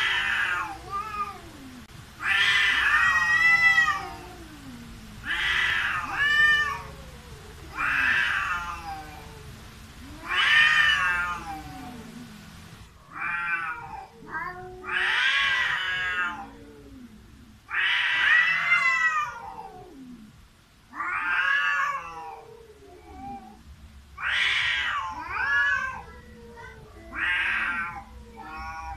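Two cats caterwauling at each other in a standoff: about a dozen long, wavering yowls, one every two to three seconds, the territorial threat calls that come before a cat fight.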